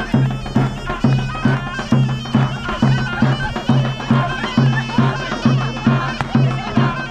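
Sorna (shawm) playing a wavering, ornamented melody over a steady dohol drum beat of about two strokes a second: Iranian folk wedding music.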